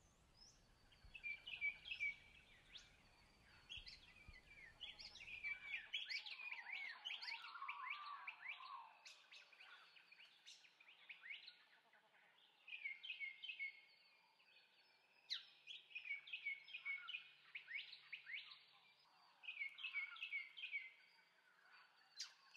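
Faint birdsong: small birds chirping in quick runs of short notes, coming in bursts with short gaps between them.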